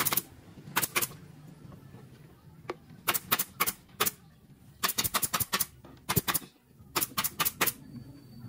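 Sharp clicks or knocks in quick runs of two to five, repeated several times with short pauses between runs.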